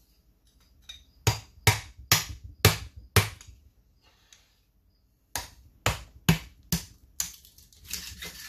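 Hammer striking a small scraper wedged into the seam between the halves of a Peerless 600 transaxle case, to break the silicone seal loose: a run of five sharp strikes about half a second apart, a pause, then five more, with a rougher, longer noise near the end.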